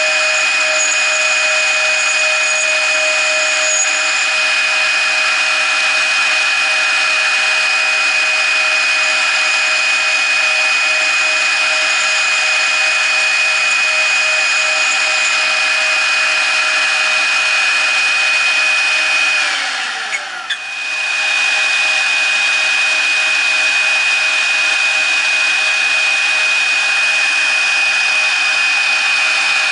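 CNC router's 0.75 kW spindle running with a steady high whine over a hiss while a 2 mm end mill cuts aluminium angle. About two-thirds of the way through, the whine slides down in pitch and the sound dips for about a second, then comes back at full pitch.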